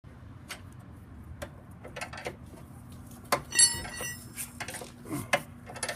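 Scattered clicks and knocks of metal objects being handled, with a sharp metallic clink about three and a half seconds in that rings briefly.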